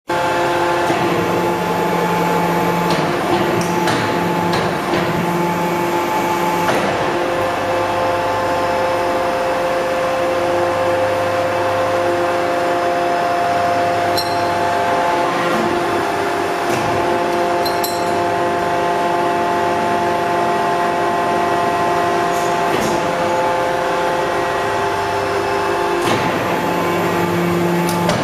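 Shisha charcoal briquette press running: a steady mechanical hum with several held tones, its low note changing every few seconds as the machine works through its pressing cycle. A few sharp clicks and knocks are heard along the way.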